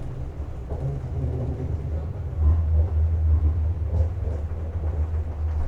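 Low, steady rumble of a tram in motion, growing louder about two and a half seconds in.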